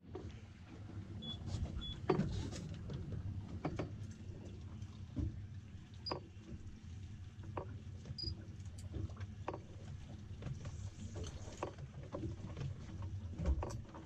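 Steady low hum around a small fishing boat at sea, with scattered light clicks and taps as a spinning rod and reel are worked over the side.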